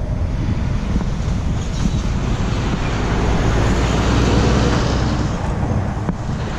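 Motor vehicle driving: steady engine and road noise with some wind, growing louder toward the middle and easing off near the end.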